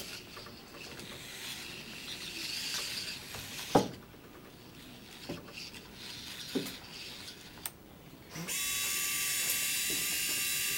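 Hobby servo gear motors on a small radio-controlled robot whining and grinding as it moves, with one sharp knock about four seconds in and a few lighter knocks after it. From about eight and a half seconds in, a steady, high servo whine holds.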